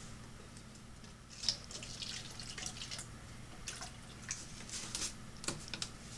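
Water splashing and dripping in irregular spatters as pepper plants are watered.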